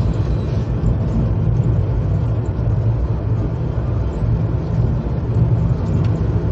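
Steady low rumble of a moving passenger train, heard from inside an air-conditioned sleeper coach.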